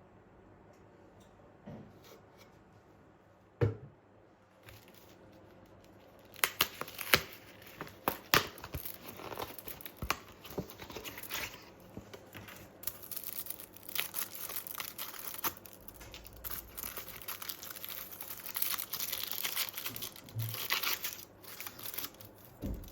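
A single knock about three and a half seconds in, then continuous crinkling and tearing, as of something being handled and ripped, with many sharp clicks.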